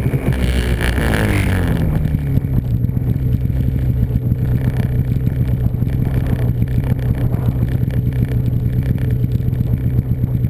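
Snowmobile engine running; its pitch drops over the first two seconds as the revs come down, then holds steady.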